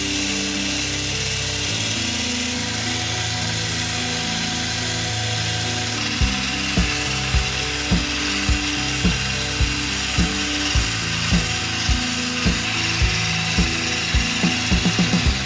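Electric whisk running at speed, whipping egg whites into a stiff foam in a glass bowl, under background music whose steady beat of low thumps comes in about six seconds in.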